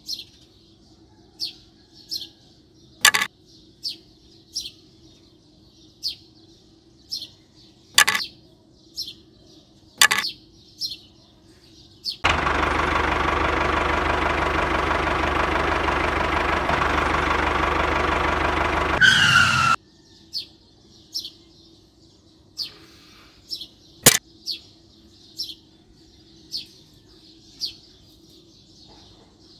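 The miniature tractor's motor runs for about seven seconds in the middle, then cuts off abruptly, as the tractor pulls its trolley away. Small birds chirp about once a second, and a few sharp knocks come from the wooden pipes and parts being set down.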